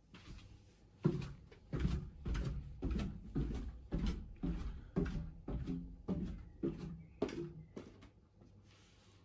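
Footsteps of a person in flip-flops going down a wooden staircase: about a dozen steady treads, a bit under two a second, that start about a second in and fade out near the end.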